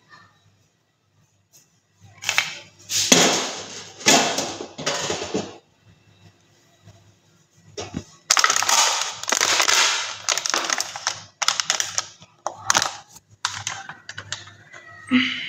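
Handling noise from a phone's microphone as the phone is picked up and moved about against clothing: bursts of rough rubbing and crackling with sharp knocks, in two main stretches with a pause between.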